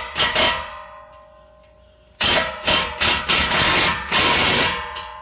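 Cordless impact wrench hammering an exhaust band clamp's nut tight: a couple of short bursts at the start, then a longer run of about two and a half seconds from about two seconds in. A metallic ringing lingers after the bursts.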